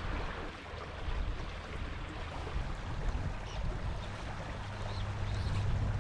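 Trout stream water running steadily, with wind rumbling on the microphone.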